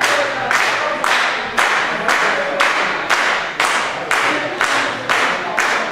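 Audience clapping in unison, a steady beat of about two claps a second, echoing in a large hall: the rhythmic clapping of encouragement given to a weightlifter before his attempt.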